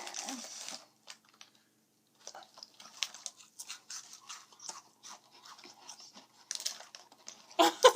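A person chewing food close to the microphone, with many small irregular crunches and mouth clicks.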